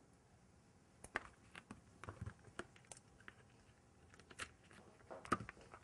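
Faint, scattered clicks and crinkles of a paper-backed sheet of adhesive crystal body jewels being handled as a piece is peeled off its liner, the loudest crackle a little past five seconds in.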